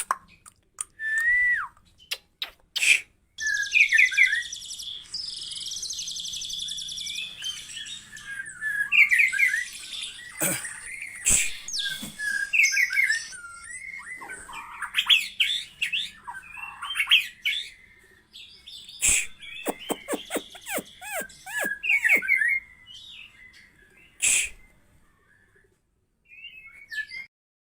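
White-rumped shama singing a long, varied song of whistles, quick chirps and trills, broken by short pauses and a few sharp clicks.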